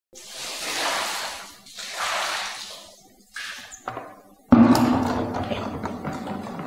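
Soapy water being splashed and sloshed across a tiled floor, in two swelling washes, then a sudden heavy thud about halfway through that dies away slowly.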